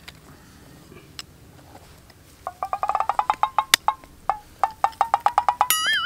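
Comic sound effect: a fast run of clicks with a slowly rising pitch, then a wobbling, warbling tone near the end, the kind of cartoon sting laid over someone collapsing.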